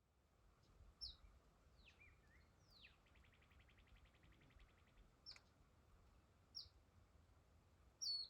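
Faint birdsong from several small songbirds: short, sharp, high chirps every second or few, two downward-slurred notes, and a rapid even trill lasting about two seconds.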